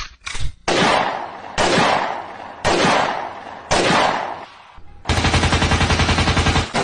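Gunfire sound effects: a few heavy single shots, each with a long echoing tail, then a rapid burst of machine-gun fire lasting about a second and a half near the end.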